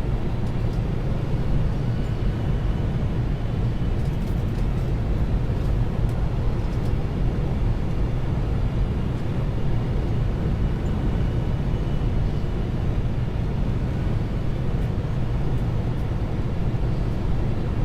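Steady low rumble of airflow and engine noise inside a Boeing 747's cockpit on final approach, with a few faint steady tones above it.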